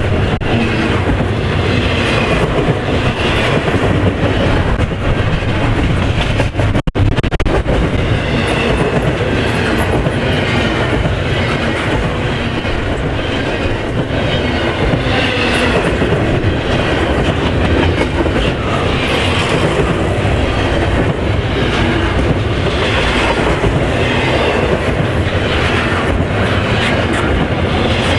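Freight train rolling past, its wheels clacking steadily over the rail joints, with a brief break about seven seconds in.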